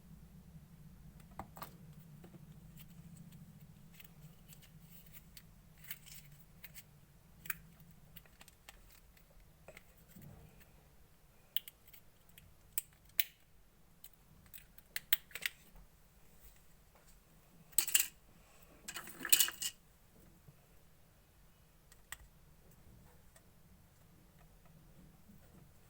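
Clear slime being worked and mixed by hand: scattered faint sticky clicks and pops, with two louder crackling bursts about 18 and 19 seconds in.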